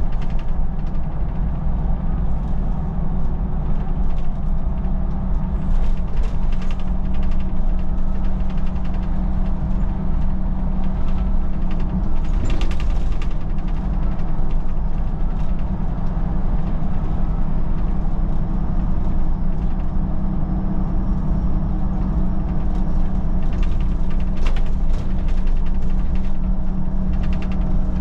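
Solaris Urbino 12 city bus driving, a steady low drone with clicks and rattles scattered throughout.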